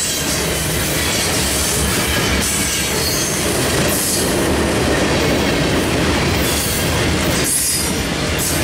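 Covered hopper cars of a freight train rolling past close by, a steady loud clatter of steel wheels on the rails that dips and swells briefly as each car goes by.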